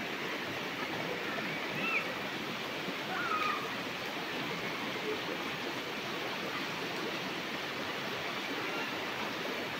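Shallow stream rushing steadily over small rocky cascades, with two brief high chirps about two and three seconds in.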